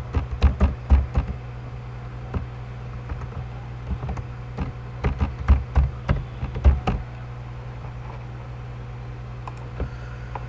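Typing on a computer keyboard in two quick runs of keystrokes, over a steady low hum. A single mouse click comes near the end.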